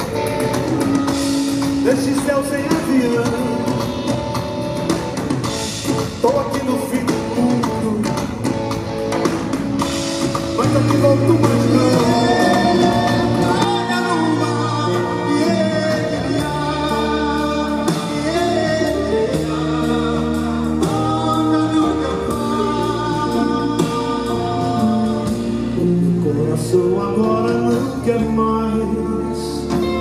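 A live band playing a song: a man singing over electric guitars, a bass line and a drum kit.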